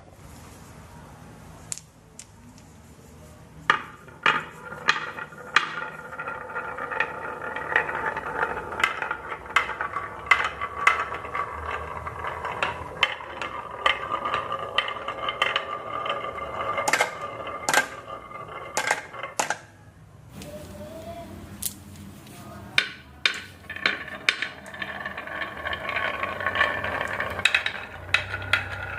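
Marbles rolling down a wooden HABA marble run track, a continuous rolling rumble with frequent sharp clicks and clacks as they hit the track pieces and each other. The sound drops away briefly about two-thirds of the way through, then the rolling and clacking pick up again.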